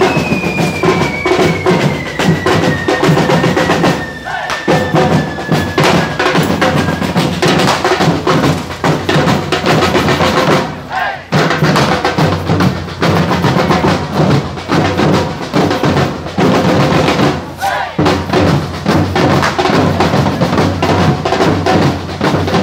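Street drum band of bass drums and snare drums played with sticks, beating a fast, driving rhythm that dips briefly twice.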